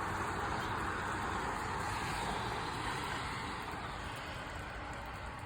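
Road traffic passing, a steady rushing noise that fades slightly over the last couple of seconds.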